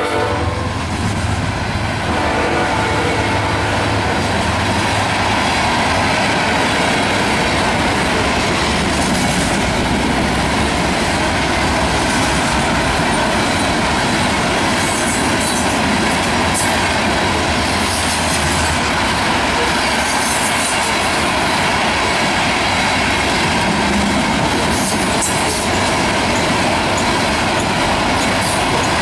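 Iron ore hopper cars of a Canadian National freight train rolling past at trackside: a steady rumble of steel wheels on rail with clickety-clack over the rail joints and brief high wheel squeals now and then.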